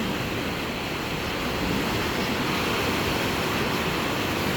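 Ocean surf breaking and washing up the beach, a steady rush that grows a little louder about two seconds in.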